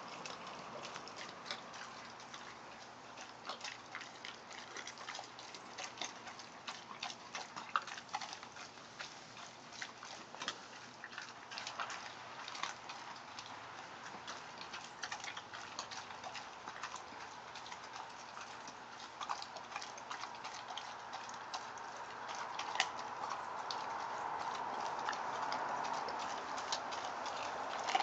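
Great Dane puppy chewing raw chicken backs, the bones crunching and cracking in an irregular run of sharp clicks. A steady hiss grows louder over the last several seconds.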